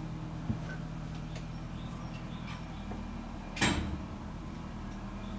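A single sharp thump about three and a half seconds in, with a faint click near the start, over a steady low hum.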